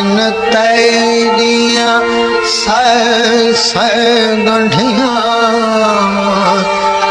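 A man singing a Sufi kafi in folk style, his voice bending through wavering ornamented runs over a steady, held drone accompaniment.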